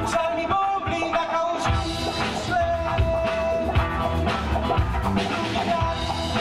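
Live rock band playing a song that blends funk and blues, with electric guitars, drum kit and bass and long held melody notes. The bass and drums drop out for about a second near the start, then come back in.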